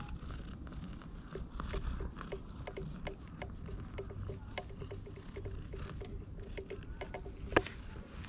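Hand stroking a cat's fur right by the microphone: irregular crackling, scratchy rustles and small clicks, with one sharper click near the end.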